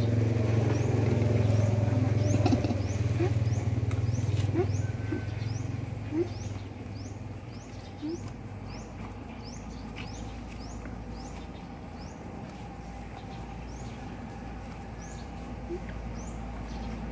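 A small bird chirping over and over, short high rising notes a little more than once a second. Under it a vehicle engine hums for the first few seconds, then fades away about six seconds in.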